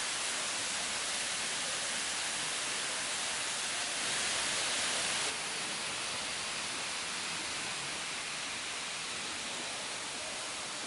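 Steady rushing hiss of falling water. It jumps louder and brighter about four seconds in and drops back abruptly about a second later.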